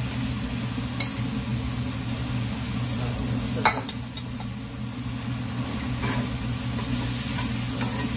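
Marinated paneer cubes with onions and tomatoes sizzling in a non-stick frying pan, with a metal spatula clinking on the pan now and then. There is one sharp knock a little over halfway through.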